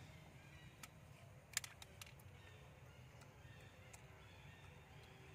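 Near silence: faint outdoor background with a few soft clicks, a small cluster of them about one and a half seconds in.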